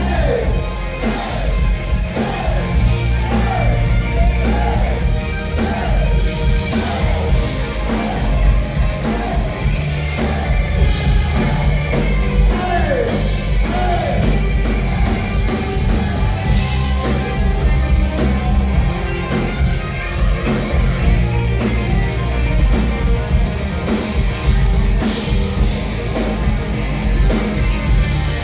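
Heavy metal rock band recording: lead electric guitar playing fast, repeated descending runs over bass guitar and drums.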